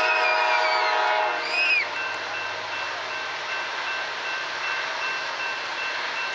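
Diesel freight locomotive's multi-chime air horn sounding a long blast that cuts off about a second in, with a brief short note just after. Then the approaching train's steady rumble, with a bell ringing at an even pace.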